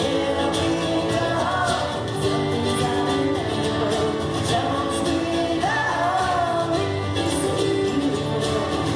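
Live acoustic pop music: an acoustic band plays steadily while a woman's voice sings long held notes that bend in pitch.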